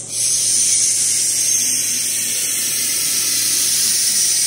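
CNC V-grooving machine's cutter running along a stainless steel sheet on a cutting stroke: a loud, steady, high-pitched scraping hiss that starts abruptly.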